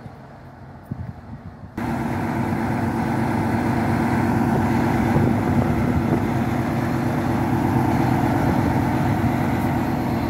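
Diesel passenger train idling at a platform: a steady engine hum with several steady tones, starting suddenly about two seconds in after a quiet stretch with a few light clicks.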